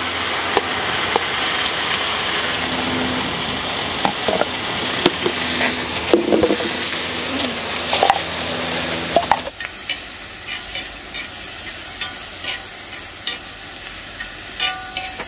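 Duruchigi, spicy stir-fried pork, sizzling loudly in a hot pan as it is stirred, with scattered clicks of the utensil on the pan. About two-thirds of the way through the sizzle drops to a quieter level. The cook says the heat was set wrong and the meat got a little burned.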